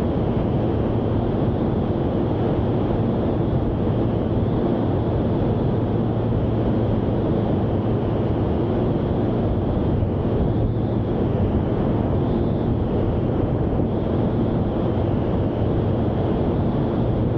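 Small experimental aircraft's piston engine and propeller droning steadily in cruise flight, with a constant low hum and rushing airflow noise.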